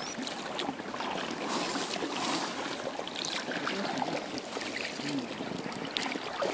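Double-bladed kayak paddles dipping and splashing in calm river water beside inflatable kayaks, in uneven strokes.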